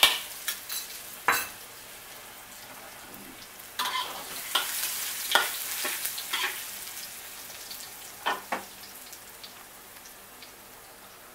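Chopped garlic and pounded chillies sizzling in hot oil in a wok, with a metal spatula scraping and clicking against the pan as they are stirred. The sizzle eases off toward the end.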